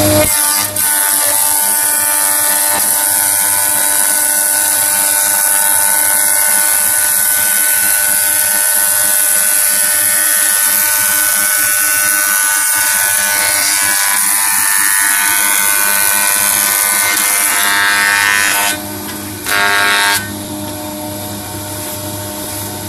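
Combination woodworking machine's planer-thicknesser running under load as a board is planed, a loud steady whine and hiss from the motor and cutterblock. About three-quarters of the way in the level dips briefly, then runs on somewhat lower.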